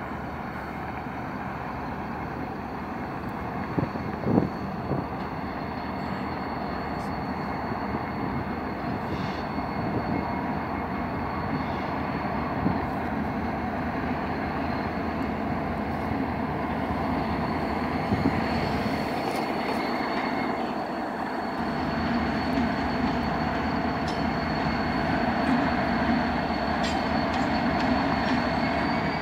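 A freight train and its Union Pacific diesel locomotives rolling through a rail yard: a continuous rumble of engines and cars with a steady high-pitched wheel squeal over it. There are a couple of knocks about four seconds in, and the sound grows slightly louder toward the end.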